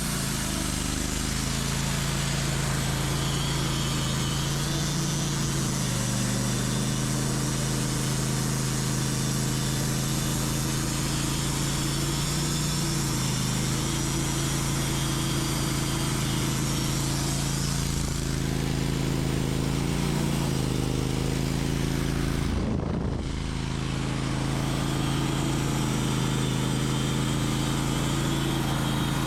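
Portable band sawmill's engine running steadily under load while the blade saws a slab from an oak log. Its pitch sags slightly now and then, and there is a brief break about two-thirds of the way through.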